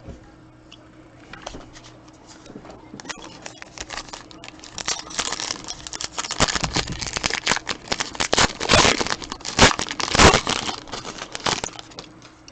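Crinkling and crackling of a trading-card pack's wrapper being handled and torn open. It is faint at first, grows busier after a few seconds and is loudest about three-quarters of the way in.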